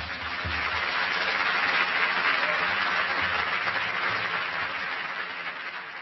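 Audience applauding, building over the first couple of seconds and then slowly dying away.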